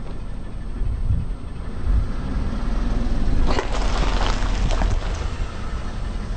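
A car tyre rolling over a clump of cacti in a small plastic pot, crushing them: a burst of crunching and cracking starts about three and a half seconds in and lasts about a second and a half, over the car's steady low rumble.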